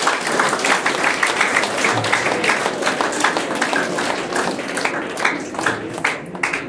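Audience applauding: many hands clapping together, tapering off near the end.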